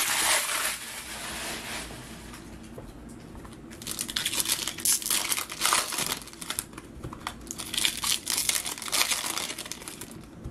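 Foil trading-card pack wrappers crinkling and tearing as packs are ripped open by hand, in bursts of crackly rustling that pick up from about four seconds in.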